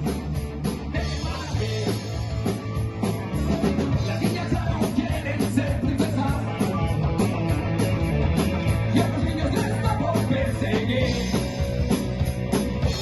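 Rock band playing live, with a steady drum beat under bass and guitars.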